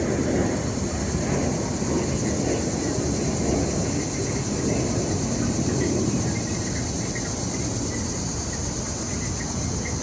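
Steady low rumble of street traffic heard through a window screen, with a continuous high-pitched buzz above it.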